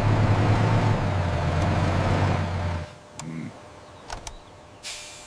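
Dump truck engine running steadily, cutting out about three seconds in. A few light clicks and a short hiss follow near the end.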